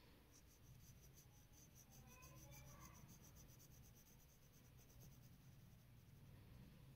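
Faint scratching of a graphite pencil shading on paper, in quick repeated strokes.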